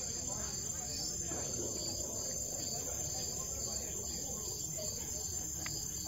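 Night chorus of crickets: a steady high-pitched trill with a pulsing chirp repeating about twice a second.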